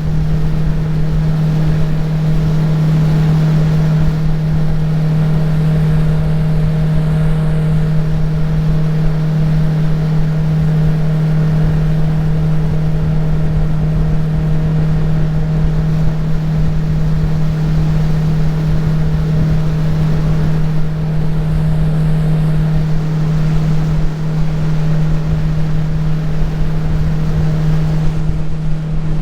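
Jet-drive outboard on a tunnel-hull jet boat running at steady speed under way: an even engine drone with low rushing noise beneath it, unchanging throughout.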